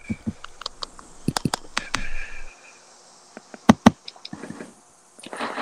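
Scattered light clicks and taps, with two louder knocks close together about three and a half seconds in.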